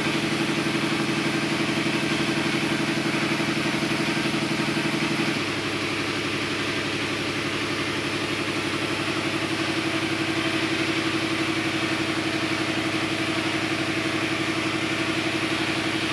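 A motor running steadily with a pulsing hum. Its note drops slightly and gets a little quieter about five seconds in.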